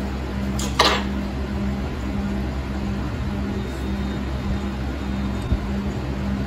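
Steady low machine hum, with a tone in it that switches on and off in an even rhythm, and one sharp click a little under a second in.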